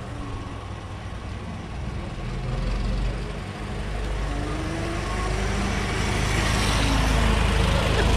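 1920 Ford Model T's four-cylinder engine running as the car drives up and passes close by, growing louder toward the end. A fainter whine rises and falls in pitch partway through.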